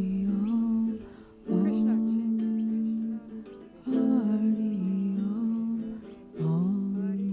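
Slow background music: a melody of long held notes in phrases a few seconds apart, briefly dipping between phrases.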